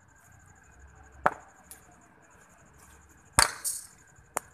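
Three sharp knocks of a cricket bat hitting a ball and the ball bouncing on a concrete practice pitch, the loudest about three and a half seconds in.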